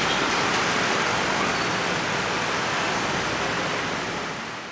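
Passenger diesel multiple unit train running away along the track: a steady rushing rumble of wheels on rail that fades out near the end.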